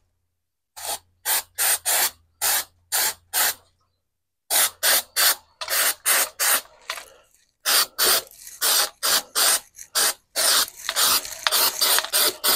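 Aerosol can of undercoating spraying in many short squirts, each lasting a fraction of a second. There is a pause about three and a half seconds in, and the squirts come quicker and closer together near the end.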